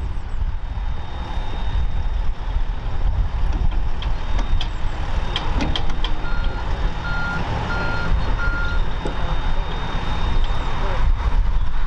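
Tracked excavator's diesel engine running steadily as the digger works, with a few sharp clanks. About halfway through, a reversing alarm beeps four times, evenly spaced.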